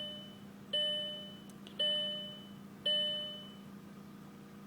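Car's dashboard warning chime sounding three times, about a second apart, each ding fading out, then stopping, over a steady low hum from the idling engine.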